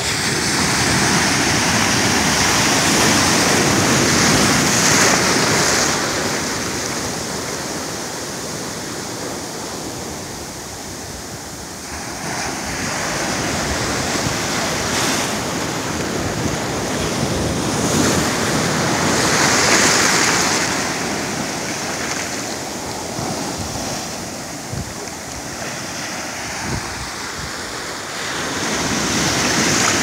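Ocean waves breaking and foaming up a sandy beach. The rushing surf rises and falls as each breaker comes in.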